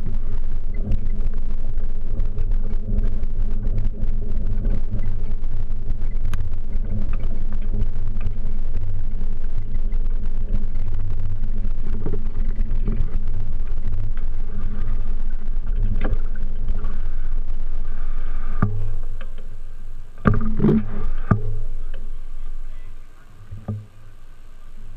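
Rumble and rattle picked up by a bicycle-mounted camera riding over a stone-paved promenade. It drops away sharply about 19 seconds in as the bike slows, followed by a few sharp knocks.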